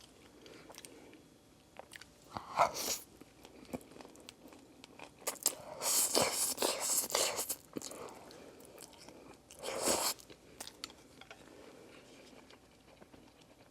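Close-miked eating: a bite into a chicken nugget topped with buldak noodles, then chewing with wet mouth clicks. Louder stretches of mouth noise come about two and a half seconds in, from about six to seven and a half seconds, and again near ten seconds.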